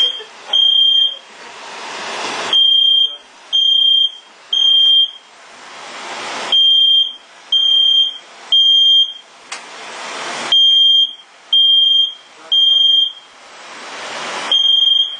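Smoke alarm sounding its high-pitched beep in the fire-alarm pattern of three beeps then a pause, over and over, set off by cooking smoke. In each pause a rushing noise swells and cuts off.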